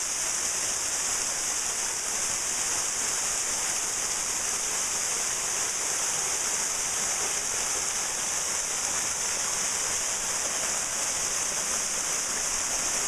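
Waterfall about 20 feet high pouring steadily, a constant unbroken hiss of falling and splashing water.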